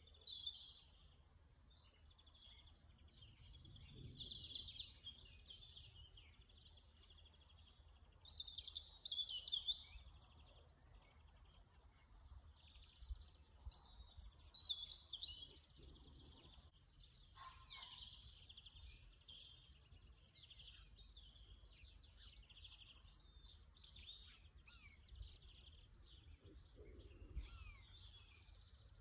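Several songbirds singing, a busy mix of chirps, trills and quick rising and falling notes, loudest in bursts about a third and half way through. A faint low rumble lies underneath.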